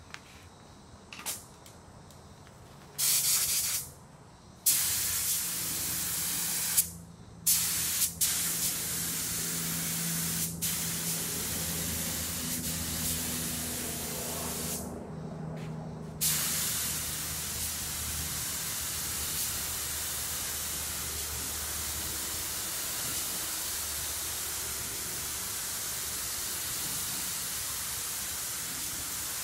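Compressed-air paint spray gun hissing as it sprays paint onto car body panels: a few short trigger bursts at first, then long steady passes broken by one pause of about a second around the middle.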